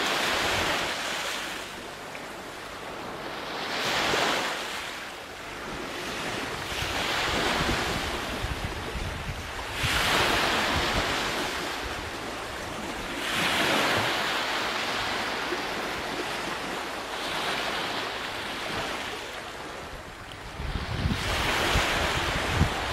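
Ocean surf: waves breaking and washing in, one swell about every three to four seconds, with a few low knocks near the end.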